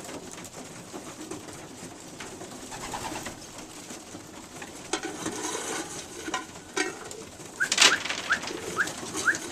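Young racing pigeons cooing, with scattered taps. Near the end comes a sharp knock, then a quick run of short, rising high squeaks.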